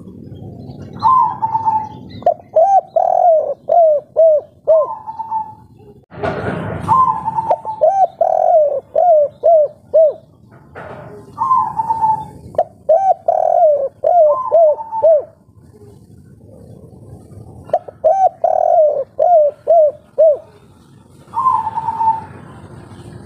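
Spotted dove (derkuku) cooing in its 'kuk 3' song style: about five repeated phrases, each a held higher coo followed by a quick run of five or six shorter, lower coos. A brief loud burst of rustling noise comes about six seconds in.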